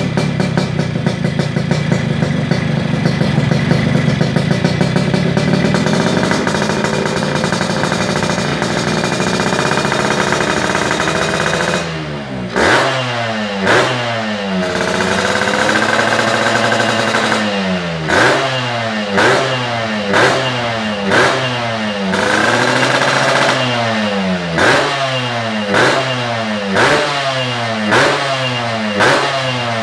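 Two-stroke single-cylinder Yamaha RX motorcycle running through an underbelly 'kobra' aftermarket exhaust. It holds a steady raised idle for about twelve seconds, then is revved in short sharp throttle blips about once a second, with a couple of longer held revs in between.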